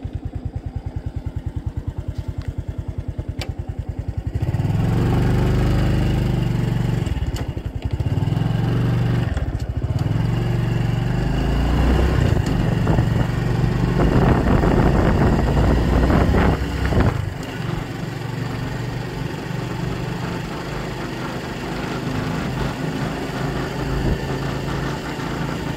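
Motorcycle engine running steadily while riding, its quick even beat clear at first. From about four seconds in, heavy wind buffeting on the bare microphone rumbles over it, loudest a little past the middle.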